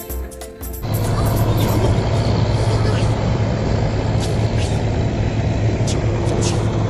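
A motor vehicle's engine running steadily, an even low hum with noise over it, coming in about a second in as background music stops.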